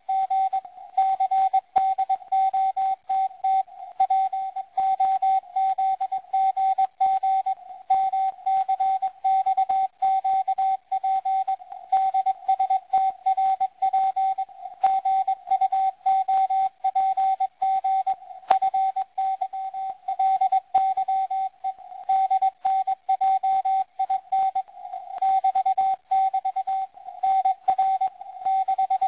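Morse code from the Israeli naval station 4XZ, received on a shortwave receiver in CW mode: a single beep tone keyed on and off in quick dots and dashes, sending coded five-letter groups, over faint radio hiss.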